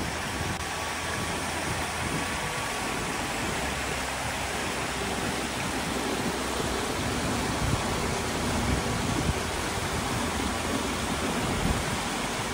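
Waterfall and rocky mountain stream: a steady, even rush of falling and flowing water.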